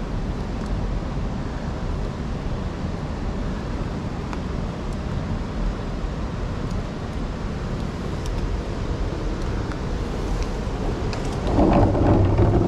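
Wind buffeting the microphone, a steady low rumbling rush that grows louder briefly near the end.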